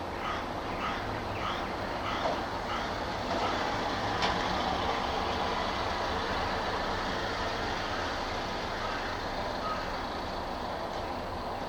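Steady traffic rumble. About half a dozen short chirps sound at roughly half-second intervals in the first three seconds, and there is one sharp click about four seconds in.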